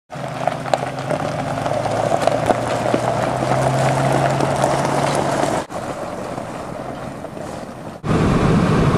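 A motor vehicle running steadily with a low engine hum, broken by two hard edits, about two-thirds of the way through and near the end.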